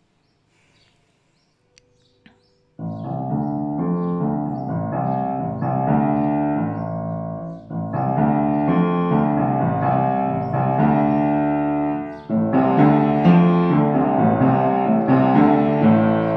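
Upright piano played four hands by two players. After near silence with a couple of faint clicks, the playing starts suddenly about three seconds in with full chords across low and middle registers, breaking off briefly twice.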